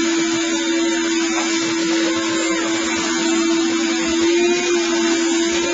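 Craftsman 5.5 HP shop vac running: a steady motor whine over a hiss of air, its pitch lifting slightly about four seconds in.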